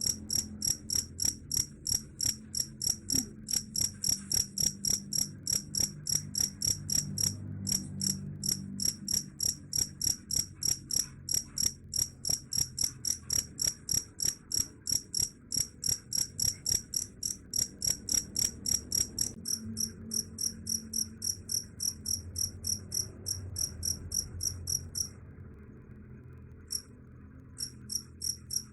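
Cricket chirping steadily and rhythmically, about three high-pitched chirps a second, with a pause of a couple of seconds near the end broken by a single chirp.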